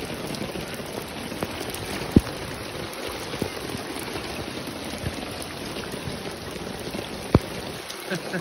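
Steady hiss of heavy rain and rushing floodwater. Two sharp low thumps stand out, about five seconds apart.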